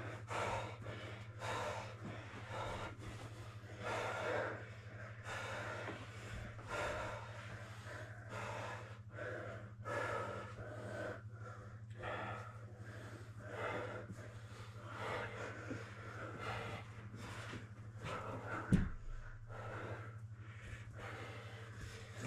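Hard, heavy breathing of grapplers exerting themselves, one breath after another in a steady run, over a constant low hum. A single thump comes near the end.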